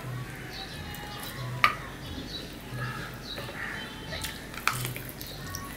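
Close-up eating sounds: chewing a mouthful of rice and mutton curry eaten by hand, with fingers mixing and squeezing rice on a steel plate. Two sharp clicks stand out, the louder one under two seconds in and another near the end.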